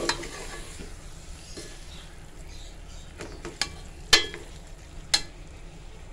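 Metal spoon stirring minced meat with tomatoes in a cooking pot, clinking against the pot a handful of times, the loudest knock about four seconds in, over a faint sizzle of frying.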